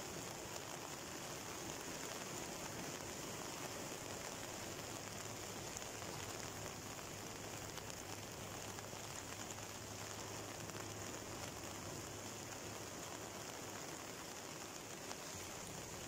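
Steady, even hiss of rain and rough surf washing onto a beach, with no separate wave crashes standing out.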